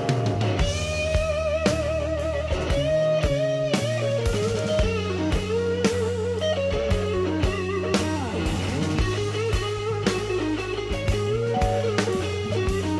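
Background music: a lead electric guitar playing wavering, bent notes over steady bass and a drum kit.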